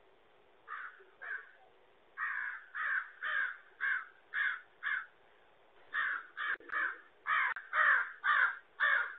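A crow cawing over and over: about sixteen harsh caws in runs of quick repeats, getting louder toward the end.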